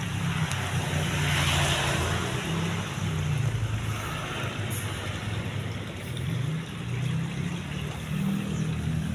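Steady low hum of motor traffic, with a wider hiss that swells about one to two seconds in.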